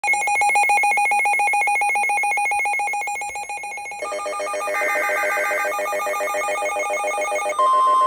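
Several NOAA weather alert radios sounding their electronic alarms together for a tornado warning. It starts as a fast warbling beep, and about four seconds in other pulsing alarm patterns join it. Near the end a single steady long alert tone begins.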